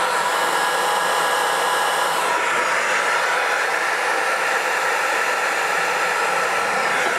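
Paint-stripper heat gun running steadily, its fan blowing hot air onto heat-shrink tubing over wire ends.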